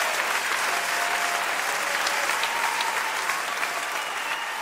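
Audience applause at the end of a live song recording, slowly dying down.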